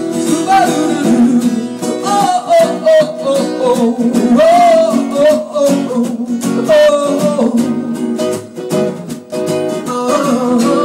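Live acoustic music: two acoustic guitars strumming chords, with a man singing a gliding melody over them through most of the stretch.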